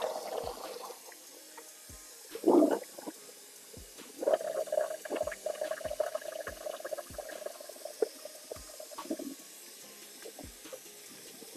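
Sink drain gurgling as soapy rinse water runs out past the strainer, with a short loud gurgle and then a longer steady gurgle, over splashing and sloshing of water around wet braids being handled.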